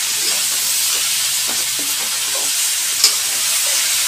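Potato and brinjal pieces in masala sizzling in oil in a metal kadhai as they are stirred and fried, a steady frying hiss with a light click of the spatula about three seconds in.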